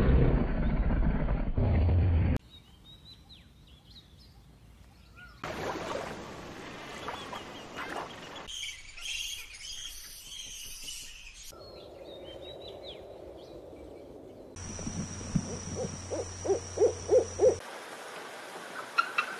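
A string of separate short wild-animal clips: a lion growling at the start, a bat's high squeaks and chatter around the middle, a run of about six low hoots after that, and a bald eagle's short repeated high calls near the end.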